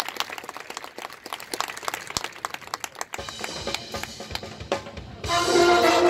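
Marching band percussion playing a sparse passage of sharp, separate hits. About five seconds in, the full band comes in loudly with sustained brass chords.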